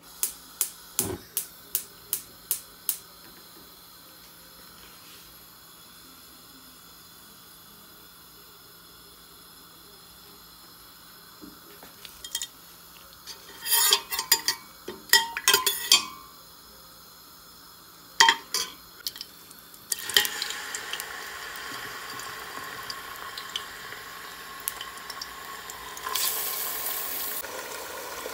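A quick series of sharp metallic clicks and, further on, bouts of clatter from a steel ladle and a stainless steel pot. About twenty seconds in, a steady sizzling starts as raw mutton pieces fry in the hot oil.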